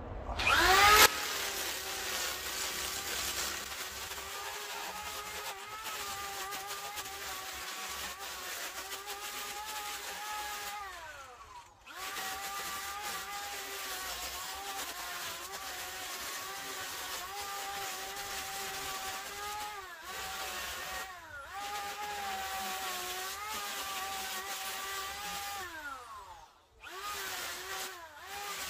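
Angle grinder fitted with a flap disc spinning up with a quick rising whine, then running steadily while sanding charred cedar, its pitch wavering slightly. Three times it winds down and cuts out briefly, then runs again.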